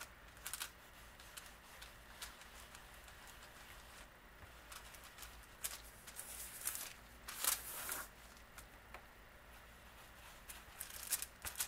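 Paper towel held in nitrile-gloved fingers rubbing antiquing gel into tooled leather in small circles: faint, irregular rustling and scrubbing with a few short swishes, the loudest about seven and a half seconds in.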